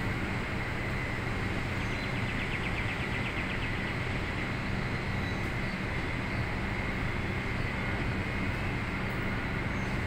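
Steady rumbling background noise with a faint, steady high whine. About two seconds in, a quick run of rapid high bird chirps lasts for about a second and a half.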